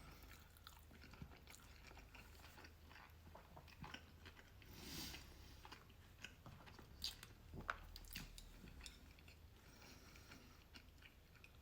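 Faint chewing of a mouthful of sushi close to the microphone, with scattered small wet mouth clicks and a few louder ones about seven to eight seconds in.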